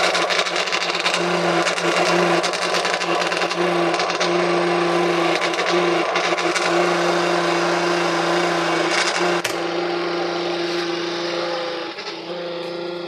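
Washing machine spin-dryer motor running with a steady hum and a dense, irregular clicking rattle that eases about ten seconds in. The noise comes from a worn bushing in the bearing (chumacera) that the motor shaft turns in.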